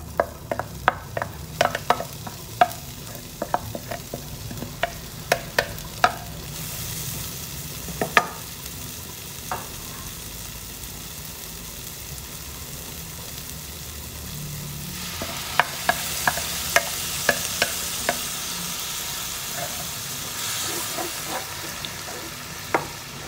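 Chopped shallots, garlic and chilies sizzling in hot oil in a wok. A run of sharp taps in the first few seconds as they are tipped in, then a steady sizzle that grows louder about two thirds of the way through, with clicks of a wooden spatula stirring them against the pan.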